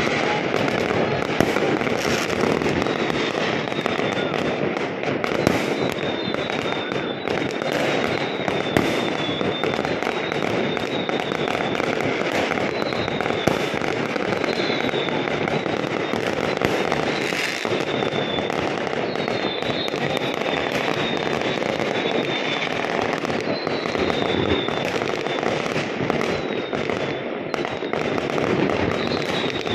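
Many fireworks going off at once across a neighbourhood: a continuous din of bangs and crackling, with sharper, louder reports scattered through it.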